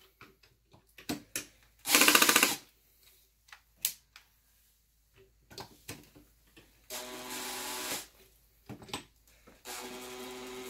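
Screws being driven into a ski binding with a hand driver: scattered sharp clicks, a loud rapid ratcheting burst about two seconds in, and two steadier buzzing runs of about a second each in the second half.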